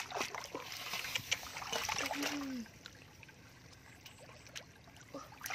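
Shallow muddy water splashing and sloshing around a metal basin of live catfish as hands and feet move through it. It is busiest for the first two and a half seconds, then drops to a few small splashes.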